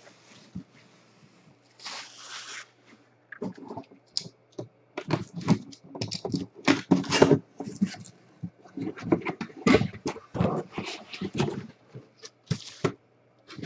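Cardboard box and plastic packaging being handled and pulled open: a brief tearing rustle about two seconds in, then a long run of irregular crinkles, clicks and knocks.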